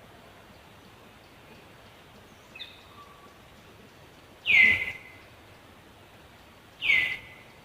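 Two loud, short, high-pitched animal calls, about two and a half seconds apart, each sliding down in pitch. A faint chirp comes before them.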